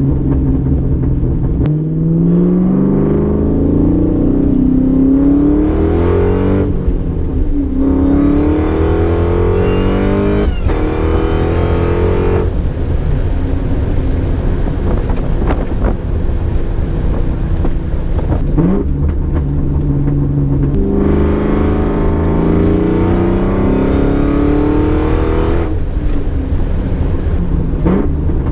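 Car engine accelerating hard through the gears: its pitch climbs for a few seconds, drops back at each shift, and climbs again several times over a steady low exhaust rumble.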